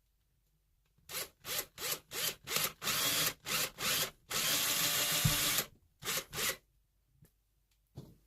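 Electric drill-driver driving a screw, run in a string of short trigger pulses, then one longer run of over a second whose motor pitch shifts, and two more short pulses.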